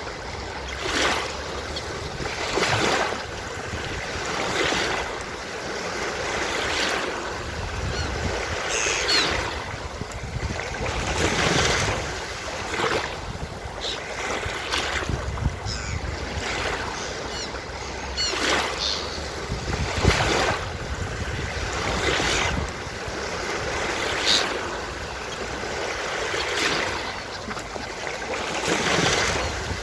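Ocean surf washing onto a beach, waves breaking and hissing in surges every couple of seconds, with a few short seagull calls now and then.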